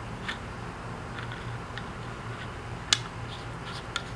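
Small metal clicks and taps of hose connection fittings being started by hand on an oil catch can, with one sharp, loud click about three seconds in. A low steady hum runs underneath.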